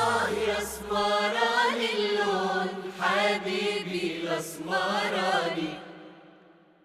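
The close of an Egyptian Arabic pop song: the drums drop out about a second in, leaving a sung vocal line over a steady held low note, and the music then fades out to silence near the end.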